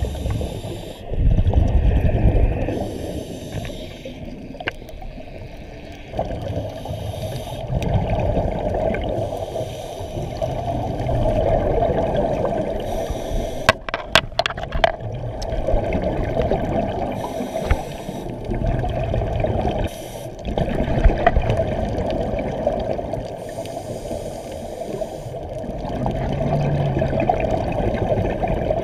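Scuba regulator breathing heard underwater: a hiss on each inhale alternating with a bubbling rumble on each exhale, every few seconds. A short run of sharp clicks comes about halfway.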